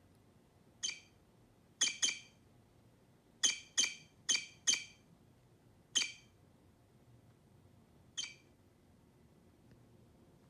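Nine short, high-pitched mouse squeaks come in irregular bunches, from the cat game's toy mouse during mouse-catching play.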